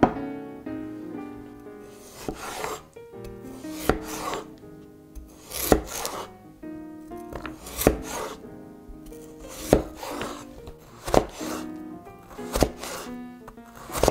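Cleaver slicing raw potatoes on a wooden cutting board: about eight slow cuts, each a short rasp through the potato ending in a sharp knock on the board, every second and a half to two seconds. Soft background music plays underneath.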